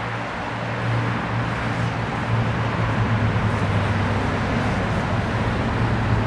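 A steady low engine hum over an even rushing noise, like a motor running constantly.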